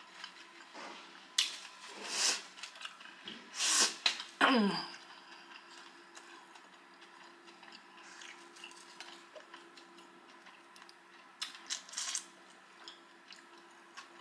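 Close-up eating sounds: a few short, sharp mouth and breath noises while chewing, then a short hum of enjoyment that falls in pitch. After that it goes quiet, with a few light clicks as food is picked apart by hand.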